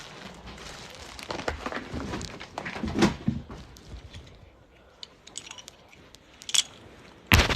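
Crinkling and rustling of things being handled, with scattered clicks, and a loud, brief rush of noise near the end.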